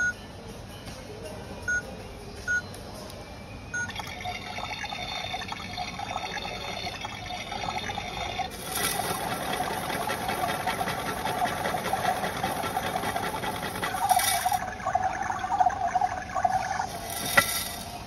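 Toy washing machine beeping several times as its buttons are pressed, then playing its wash-cycle sound effect: a watery running sound that swells about eight seconds in, with a few sharp clicks near the end.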